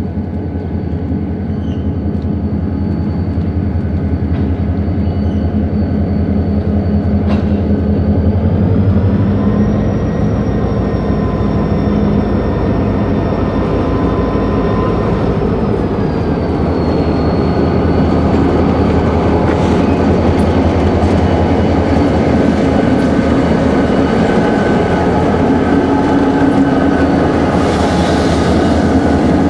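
Diesel locomotive engine running as the train approaches, growing slowly louder; the lead unit is an EMD GP40-2, with a turbocharged 16-cylinder engine. A high whine rises in pitch about nine seconds in and drops back about sixteen seconds in. A brief hiss comes near the end as the locomotive passes close by.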